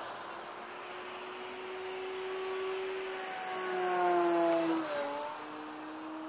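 Electric RC aerobatic plane in flight: the Torque 2814 brushless motor spinning a 12x6 APC propeller makes a steady buzzing whine. It grows louder about four seconds in, then drops in pitch just before the fifth second and runs on at a lower steady tone.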